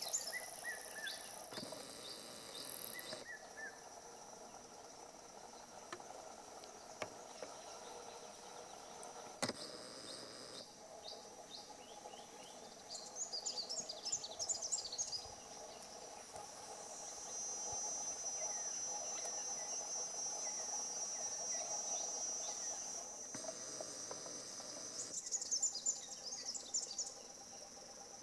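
Forest insects, such as crickets, chirping and droning steadily at a high pitch. Short bursts of rapid high chirps come about halfway and again near the end, and the drone grows louder for several seconds past the middle.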